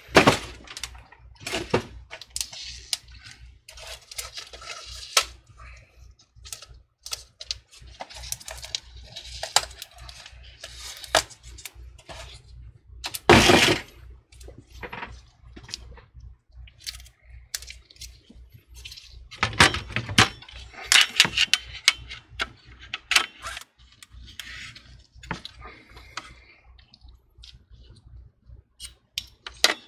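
Irregular clicks, knocks and light clatter of a motherboard and its metal bracket being handled and fitted into a PC case's metal frame, with a louder knock about halfway through.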